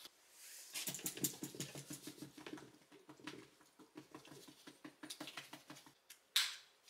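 Quick light tapping and rustling, several taps a second, as hands handle a mameshiba and its collar and leash, with one louder sharp sound about six and a half seconds in.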